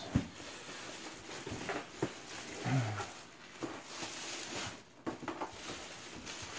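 Clear plastic bag crinkling and rustling as it is handled and pulled off a cardboard box, with a knock just after the start as the box is moved on the wooden table.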